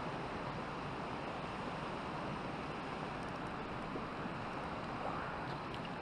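Steady rushing of a shallow river running over riffles.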